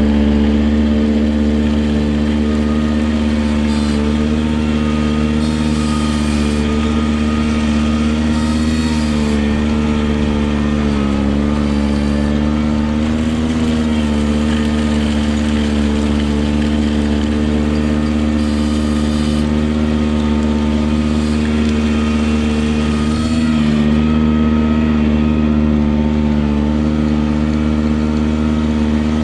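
Ventrac compact tractor engine running steadily at high speed, its pitch sagging briefly a few times.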